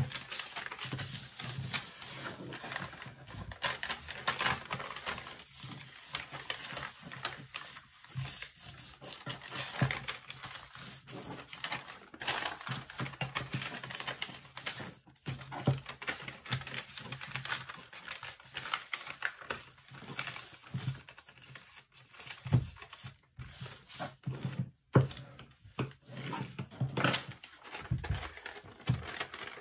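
A large sheet of origami paper crackling and rustling as it is folded and creased by hand. The crinkles come quick and irregular, with a few sharper snaps.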